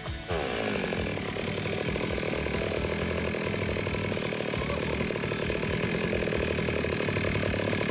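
Stihl MS 382 chainsaw's two-stroke engine comes in just after the start with a brief high rev that falls away, then idles steadily.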